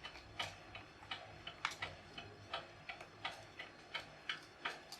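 Wind-up mechanical clock, partly rebuilt with 3D-printed parts, ticking steadily at about three sharp ticks a second, some louder than others.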